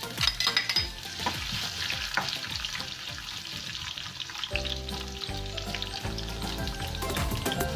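Food sizzling steadily in a hot frying pan as it starts to fry, with a few sharp utensil clicks near the start. Background music comes in about halfway through.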